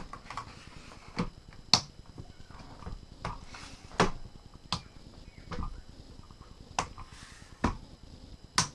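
Yunteng VCT-288 monopod being handled: about seven sharp clicks and knocks, irregularly spaced, with some scraping and rustling between them.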